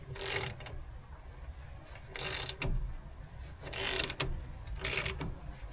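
Hand ratchet clicking in four or five short strokes as the lower ball joint is worked out of the control arm, the joint coming loose as it goes.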